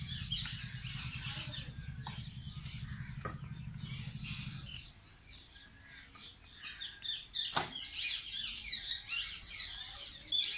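Small birds chirping busily, the chirps thickest in the second half. A low steady hum runs under them until about halfway, then stops, and a few sharp clicks sound.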